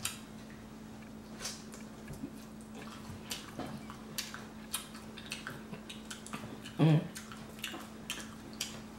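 Eating grilled shrimp: scattered small wet clicks and smacks of chewing, and of fingers pulling shrimp and shell off the skewers. A steady low hum sits underneath, and a short vocal sound comes about seven seconds in.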